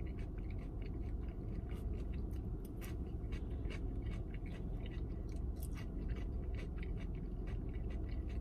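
A person chewing food with the mouth closed: a run of short, irregular soft clicks, over a steady low rumble.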